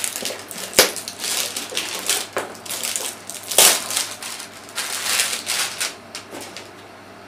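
Clear plastic shrink-wrap crinkling and crackling in quick irregular bursts as it is peeled and torn off a cardboard-and-plastic camera box, with two sharper crackles, about a second in and midway; it dies down near the end.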